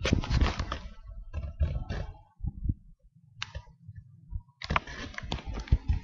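Handling noise from a camera carried against a hooded jacket: irregular rubbing and bumping of fabric on the microphone, with a quieter gap midway.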